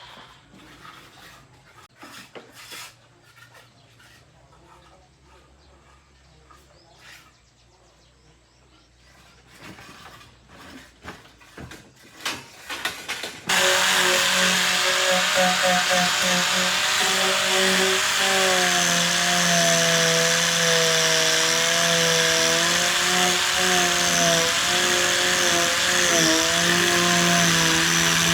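Faint clicks and scrapes of tools being handled, then, about halfway through, a power tool starts suddenly and runs loud and steady, its whine wavering in pitch as it works.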